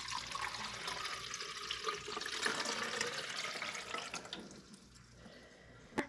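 Water pouring from a plastic cup into a Go Iced Classic coffee maker's plastic water reservoir, splashing as it fills. The pour stops about four seconds in.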